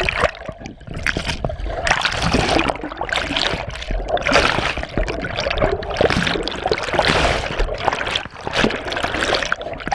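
Waterfall pouring close by: a loud, uneven rushing of falling water with irregular splashes, swelling and dipping.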